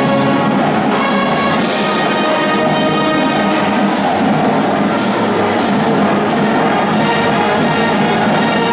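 A high school marching band playing: massed trumpets, sousaphones and woodwinds over a drumline. From about four seconds in, sharp percussion hits land on the beat roughly every two-thirds of a second.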